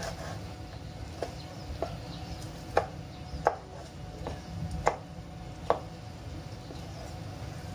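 A cleaver chopping down onto a raw pork chop on a cutting board, scoring the meat to tenderize it and stop it curling. About six sharp knocks at an uneven pace, the loudest four coming in the middle.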